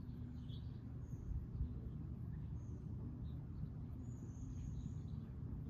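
Outdoor ambience: a steady low rumble with a few faint, short high chirps, one longer chirp about four seconds in.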